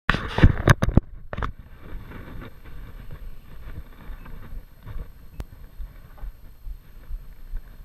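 Wind buffeting a GoPro's microphone, with loud knocks and bumps of handling in the first second or so, then a quieter steady rush of wind and a single sharp click about five seconds in.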